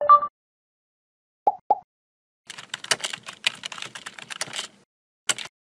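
Computer keyboard typing sound effect: a rapid run of key clicks lasting about two seconds, with one more keystroke near the end. Before it come a short two-note pop and two quick blips.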